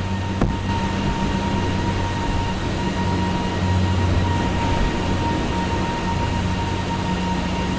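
Steady machinery hum of workshop equipment, with a low drone and a thin high tone over a hiss, and a single sharp click about half a second in.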